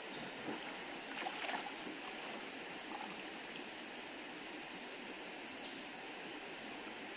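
River water rushing steadily, with a brief burst of splashing a little over a second in.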